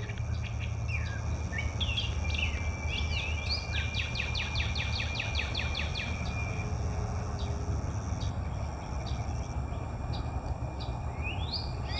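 Several wild birds calling: quick runs of chirps, rising whistled notes and a fast trill, with one thin whistle held for about four seconds, over a steady high hiss and a low rumble.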